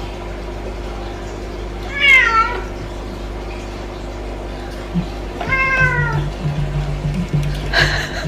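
A cat meowing twice, about two seconds in and again past the middle, each call falling in pitch at its end, with background music underneath.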